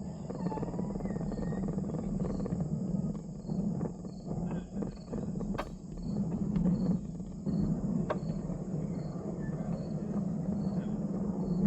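Small train rolling down a steep grade: a steady low rumble with scattered sharp clicks and a faint high ticking about twice a second, plus a few short squeals.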